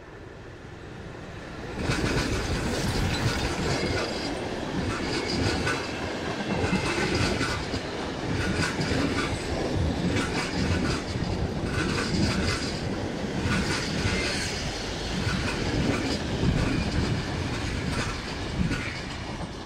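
A train hauled by a VR Class Hr1 steam locomotive passing close by at speed. The sound jumps up about two seconds in as the train reaches the spot, then a steady run of wheels clattering over the rail joints as the coaches and wagons go past.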